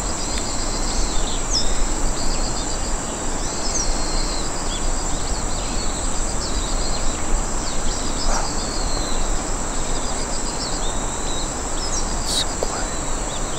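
Rural outdoor ambience: insects shrill steadily at a high pitch, while birds chirp briefly every second or two.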